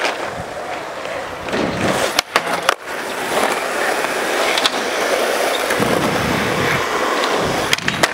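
Skateboard wheels rolling on a smooth concrete skatepark surface, a steady rushing noise that grows louder as the board nears. It is broken by a few sharp clacks of the board hitting the ground, at about two, three and four and a half seconds in and again near the end.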